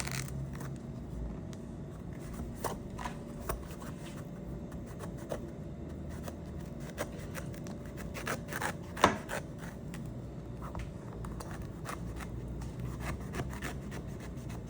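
The small knife blade of a multitool cutting through a thick-skinned citrus fruit: quiet scraping with scattered light clicks, and one sharper click about nine seconds in.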